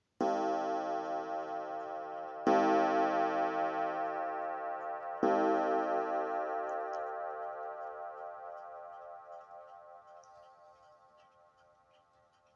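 Thin wire clock gong struck three times, about two and a half seconds apart, each strike ringing with many overtones and dying away slowly. Faint clock ticking shows through as the ringing fades.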